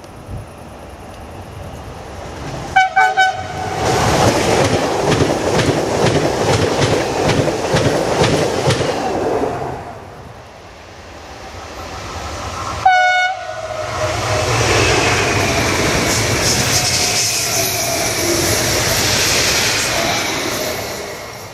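Two electric trains passing on the main line, each giving a short horn greeting: a few quick toots about three seconds in, then a train rolling past with clickety-clack of wheels over the rail joints. After a lull, a single short horn blast about thirteen seconds in, then a second train passing with a falling whine.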